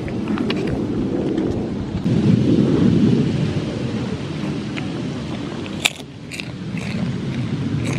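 Wind buffeting the microphone, a heavy, uneven low rumble. A few sharp clicks and knocks come through it, the loudest just before six seconds, as a goat noses right up against the camera on the wooden table.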